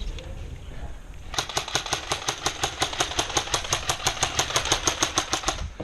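Airsoft gun firing a long full-auto burst, a rapid even rattle of about ten shots a second lasting roughly four seconds, starting about a second and a half in.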